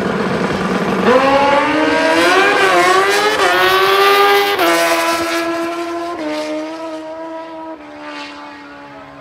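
Sport motorcycle launching down a drag strip at full throttle. Its engine note climbs, then drops in steps several times as the rider shifts up through the gears, fading as the bike runs away down the track.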